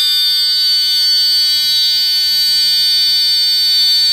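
Engine-panel alarm buzzer for a Volvo marine engine sounding one steady, shrill electronic tone without a break. This is the warning that sounds while the ignition is on and the cold engine has not yet started.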